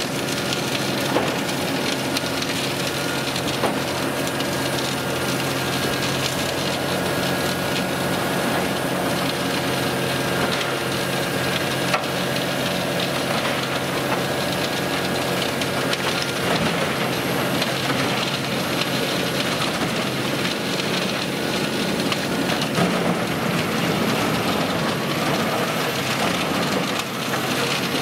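Tractor-driven drum wood chipper, an Eschlböck Biber 92 powered by a Claas Xerion 4000's diesel engine, running steadily while chipping wood, with a few sharp cracks.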